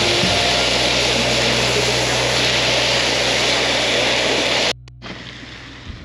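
Gas camp-stove burner roaring steadily with a low hum under it. The roar cuts off suddenly about three-quarters of the way through, leaving a much quieter background.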